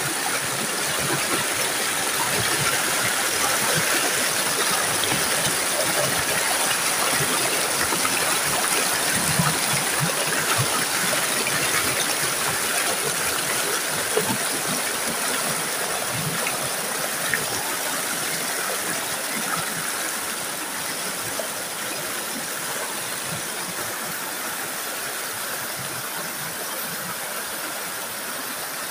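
Shallow rocky stream rushing and splashing over boulders in small rapids: a steady, dense rush of water that grows a little softer over the second half.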